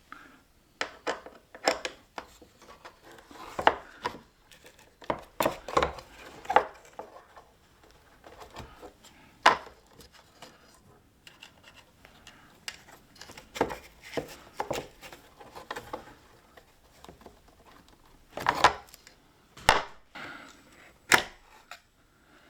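Irregular clicks, taps and knocks of small tools, screws and parts being handled while taking apart a 27-inch iMac's internals, with a few sharper knocks among them.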